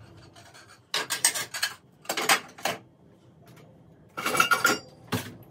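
Dishes and cutlery clinking and clattering as a dishwasher is unloaded, in three short bursts of knocks with quieter gaps between, a few clinks ringing briefly in the last.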